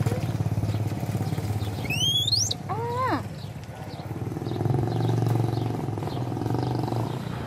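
A motorcycle engine running steadily, with a low pulsing hum. Two short high-pitched calls come through it about two and three seconds in, the first rising and the second falling.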